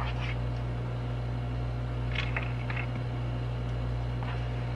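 A metal spoon scraping and tapping in a bowl of melted chocolate, a few short scrapes about two seconds in and near the end, over a steady low hum.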